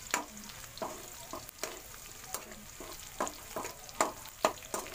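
Metal spoon clinking and scraping against a metal wok while pork and chopped garlic are stirred in hot oil. Irregular sharp clinks, several a second, sound over a steady frying sizzle.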